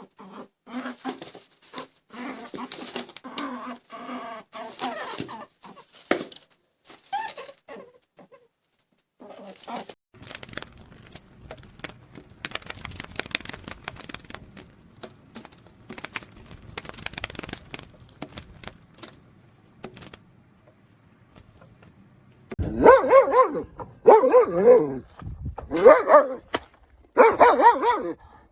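A dog barking four times in the last six seconds, each bark drawn out and pitched. Scattered rustling and clicking come before the barks.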